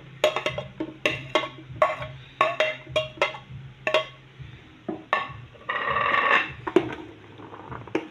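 Metal spoon clinking and scraping on a ceramic plate: a quick run of sharp clinks, then a longer scrape about six seconds in.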